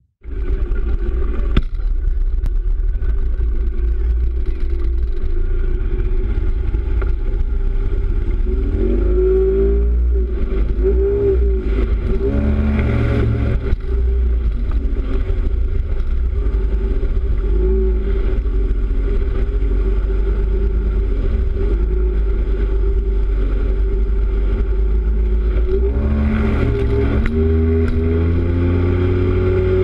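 A tuned 40 hp Yamaha two-stroke outboard running a RIB at high speed, loud and continuous over a heavy low wind rumble. Its pitch wavers and glides about ten seconds in and again near the end.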